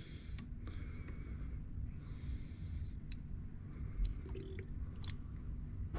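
Brake fluid poured from a small plastic bottle into the plastic master-cylinder reservoir: a faint trickle with a few light plastic clicks and taps, over a low background rumble.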